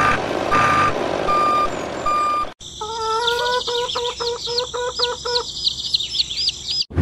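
Truck reversing beeper beeping at an even pace over engine rumble. About two and a half seconds in it cuts to birds chirping and calling.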